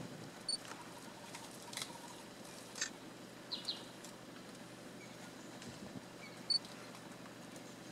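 African elephant stripping bark and twigs from a mopane tree: a few scattered sharp cracks and snaps of wood over a quiet bush background, with brief high bird chirps near the start and near the end.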